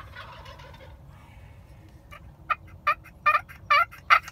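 Wild turkey calling: a rolling gobble at the start, then a run of about six sharp yelps that grow louder toward the end.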